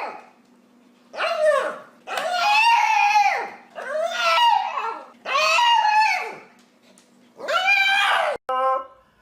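Dog making a series of drawn-out, whining howl-like calls, about five in all, each rising and then falling in pitch, with a short call near the end.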